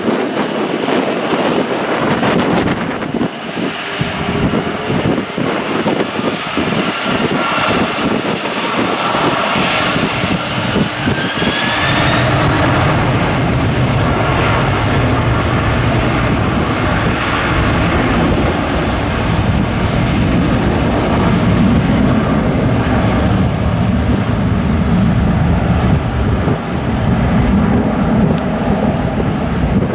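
Boeing 767-200 twin jet engines spooling up for takeoff: a rising whine about ten seconds in, then a deep, steady rumble of takeoff thrust that grows stronger as the airliner accelerates down the runway.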